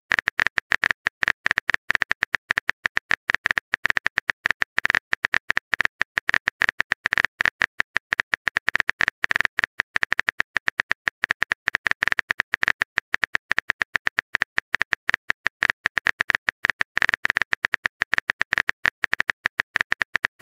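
Phone-keyboard typing sound effect: rapid, uneven clicks, several a second.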